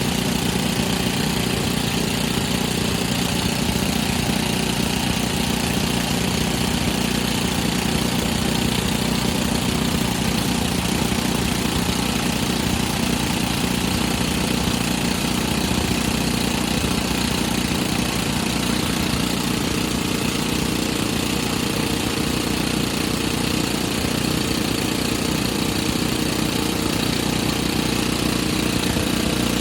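Excavator-mounted drill rig's engine running steadily, without change for the whole stretch.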